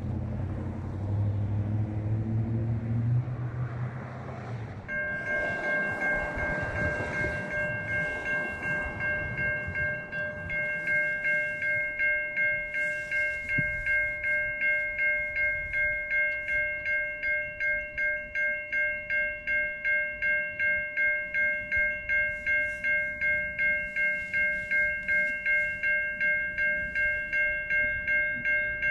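Railway level-crossing warning bell ringing steadily, about two strokes a second, starting suddenly about five seconds in. Before it, a low vehicle engine rumble.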